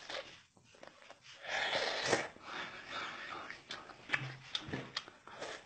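A person eating close to the microphone: irregular bursts of chewing and breathing noises.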